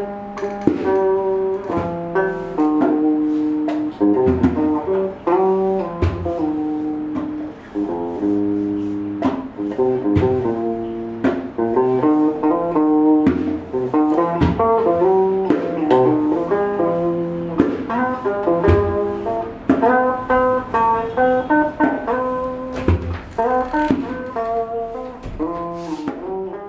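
Guitar being played freestyle: a continuous improvised run of plucked melodic notes and chords, fading out near the end.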